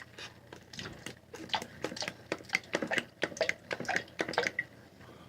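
Handling noise: a quick, irregular run of sharp clicks and taps, bunched from about a second in until near the end, then stopping.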